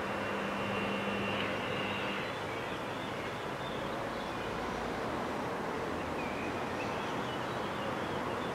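Steady traffic and street noise. A vehicle engine hums steadily for about the first two seconds, then fades out.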